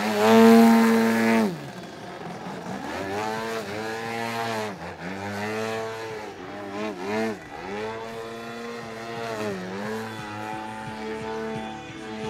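DLE 130 twin-cylinder two-stroke petrol engine of a 103-inch Pilot-RC Slick aerobatic model plane in flight. It is loudest and highest in pitch at full throttle for the first second and a half, then falls away. After that its pitch rises and falls again and again as the throttle is worked through the manoeuvres.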